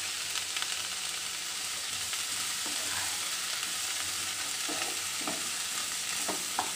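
Mushrooms, onion and capsicum sizzling in a hot kadai in a little coconut oil: a steady frying hiss. A few short taps and scrapes of stirring come in the last couple of seconds.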